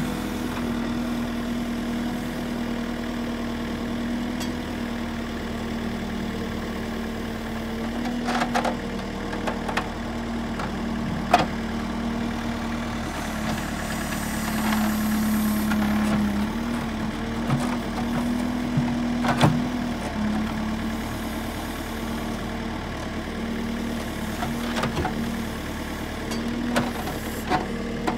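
Excavator running steadily with a low hum, with occasional sharp knocks and clanks. The sound swells with added hiss for a couple of seconds about halfway through.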